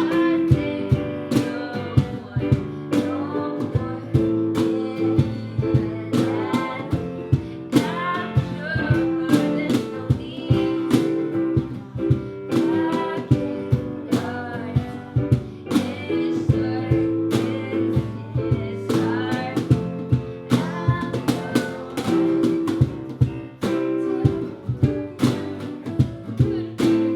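Acoustic band music: an acoustic guitar playing over a cajon struck in a steady beat of sharp hits.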